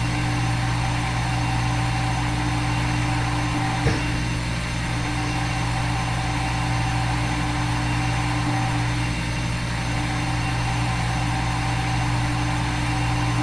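A steady hum with a few fixed tones over a faint hiss, and a single click about four seconds in.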